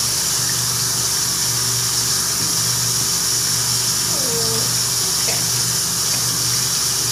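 Tap water running steadily into a sink as a rabbit is rinsed under it, over a low hum that swells and fades about once a second.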